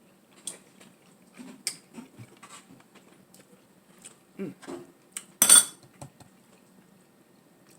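Cutlery clinking and scraping against dishes in short, scattered clicks, with one louder clatter about five and a half seconds in.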